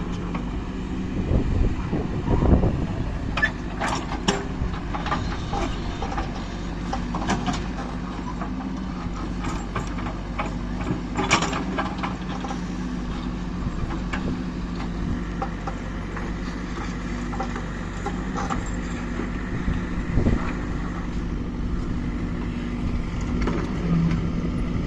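Heavy vehicle's diesel engine running steadily under load, with a few short knocks and clatters over it.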